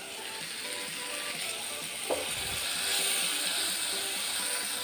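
Pumpkin and tomato pieces sizzling in a non-stick kadhai while a spatula stirs and scrapes them, the sizzle growing louder after about two seconds. Soft background music plays underneath.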